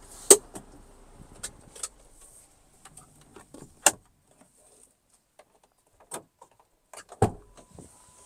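Handling noises in a truck cab: a sharp click about a third of a second in, a faint steady low hum that stops about two seconds in, scattered small clicks and knocks, another sharp click near four seconds, and a heavier thump of the driver's door latch and door opening about seven seconds in.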